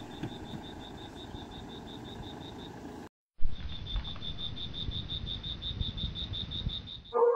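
An insect chirping in a high, even pulse, about five or six chirps a second, over low rumbling outdoor noise. The sound drops out for a moment about three seconds in, then the chirping carries on with more low rumble.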